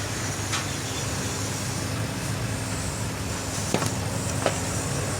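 Steady machine hum with a few sharp clicks, a faint one early and two louder ones close together near the end.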